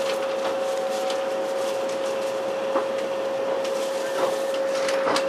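Cabin noise of an electric passenger train on the move: a steady, even-pitched hum over running noise, with a few sharp clicks and rattles.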